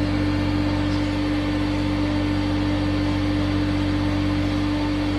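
Two stepper motors turning the chucks of a glass lathe in step, giving a steady hum with one strong tone, over the steady rush of a glassworking torch flame.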